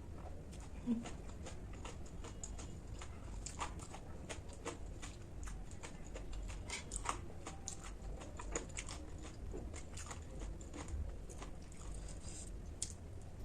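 Close-up chewing of crunchy food, many small irregular crackles and crunches in the mouth.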